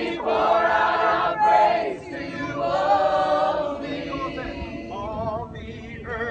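A crowd of protesters singing together, holding long notes in slow phrases, louder in the first few seconds and quieter toward the end.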